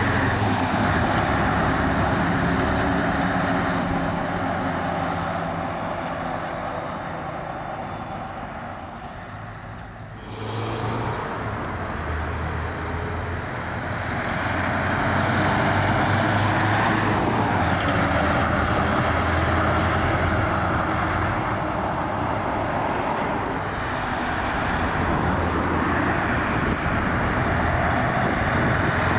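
Scania 143M 420's 14-litre V8 diesel truck engine running as the tractor unit drives by, fading into the distance over the first ten seconds, then after an abrupt change growing louder again. A faint high whistle rises and falls twice.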